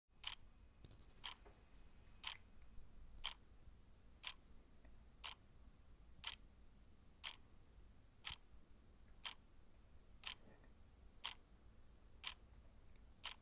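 Clock ticking faintly and steadily, one tick a second.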